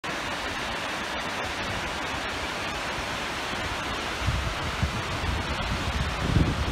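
Steady rushing of the River Dee's rapids far below. From about four seconds in, wind buffets the microphone with an uneven low rumble.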